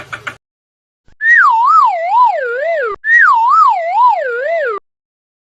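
Cartoon sound effect: a warbling whistle tone that wobbles about twice a second while sliding down in pitch, played twice back to back.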